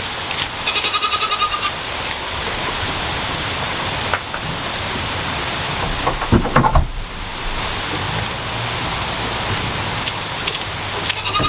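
Steady heavy rain falling, with a Nigerian dwarf goat giving a quavering bleat about a second in and again near the end. A few knocks come about halfway through.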